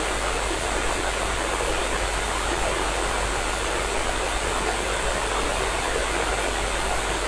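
Steady radio static hiss from an SDR receiver tuned to the ISS 145.8 MHz voice downlink, with no voice on the channel: the station is not transmitting.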